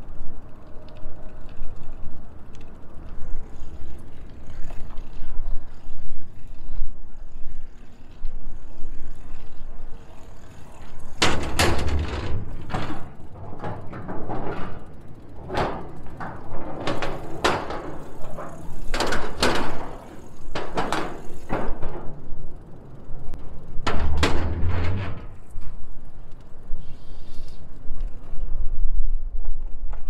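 Footsteps clanging and knocking on a metal gangway's grated decking, about two a step-beats a second, with heavier hollow thumps where the walkway is stepped onto and off. Before that, only a low steady rumble.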